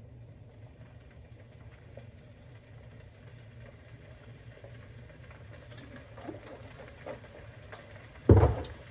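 Low steady hum with a few faint small sounds while a man drinks from a plastic jug. A sudden loud thud comes near the end.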